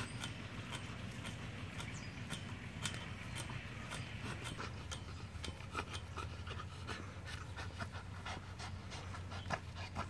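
Pit bull panting as it tugs at a toy on a bungee cord, with frequent sharp clicks through it and a low steady hum underneath.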